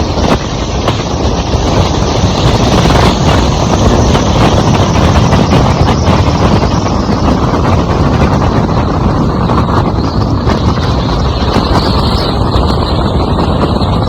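Loud, steady rushing wind noise buffeting the microphone, mixed with the rumble of a moving vehicle.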